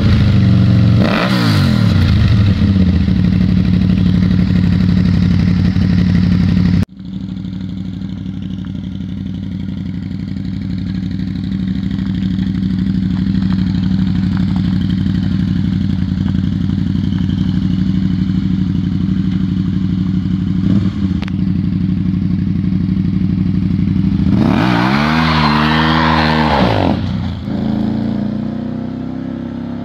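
Can-Am Spyder RS trike's Rotax 990cc V-twin running. It idles with a couple of throttle blips near the start, then settles into a steady idle as the trike pulls away. Near the end the engine revs up and back down once as it accelerates off, then fades.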